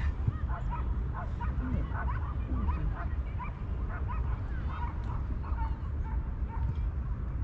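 Kittens mewing, short high-pitched calls repeating several times a second over a steady low rumble.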